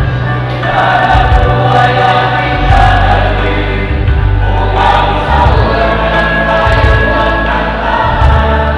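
Choir singing a Filipino song over a low instrumental bass line.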